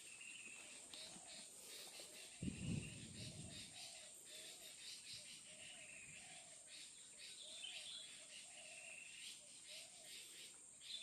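Tropical forest ambience: a steady high insect drone with rapid pulsed insect chirping, a row of short low calls repeating about twice a second, and a few rising bird calls. A low rumbling thump about two and a half seconds in is briefly the loudest sound.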